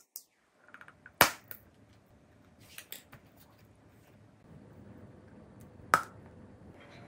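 Two sharp, crisp cracks of teeth biting into candy, one about a second in and one near the end, with smaller crackles and mouth clicks of chewing between them.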